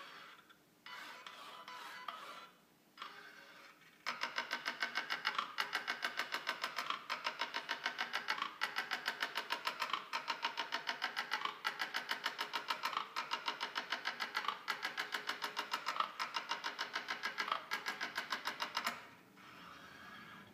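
Linear-motor X-Y positioning stage running a demonstration: a few short bursts of movement with pauses between them, then a fast, even pulsing buzz of about five strokes a second as it makes rapid point-to-point moves. Under the pulsing, a whine rises and falls over and over. It stops shortly before the end.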